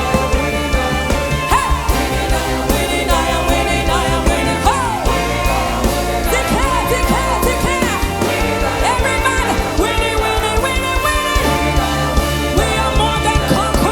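A song with singing over a full band and a steady beat.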